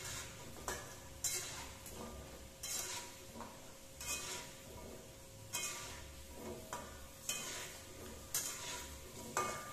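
Metal slotted spatula scraping and turning jengkol frying in oil in a metal pan, a short scrape about every second over a low sizzle.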